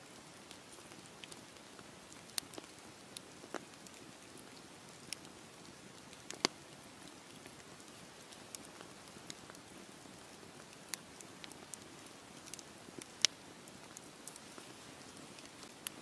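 Log campfire burning: a faint steady hiss with scattered crackles and sharp pops, the loudest a little after six seconds and again about thirteen seconds in.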